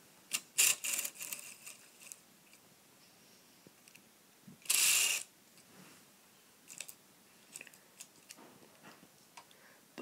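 Handling noise from a Lego Technic model: a run of sharp plastic clicks and rattles in the first two seconds, a short rustle about five seconds in, then scattered small clicks. No motor is running.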